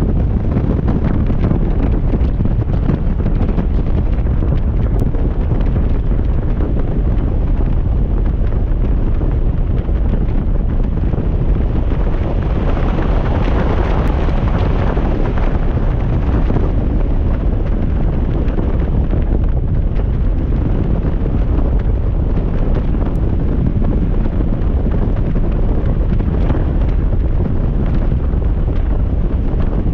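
Wind buffeting the microphone on a moving motorcycle: a loud, steady rumbling rush that grows brighter for a few seconds about halfway through.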